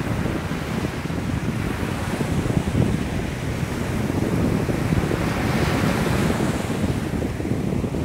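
Small sea waves breaking and washing up a sandy beach in a steady rushing surf, with a swell of hissing wash about five to six seconds in. Wind on the microphone adds a low rumble underneath.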